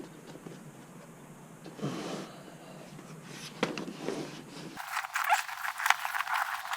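A plastic puncture-resistant liner rubbing and scraping against the rubber inside a bike tire as it is fitted by hand. There are a few short rubs, then a busier run of quick scratchy rustles near the end.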